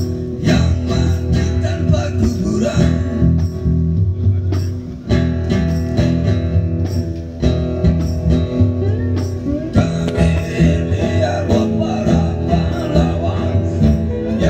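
A live band playing: an electric bass and guitars strummed and picked together in a steady rhythm.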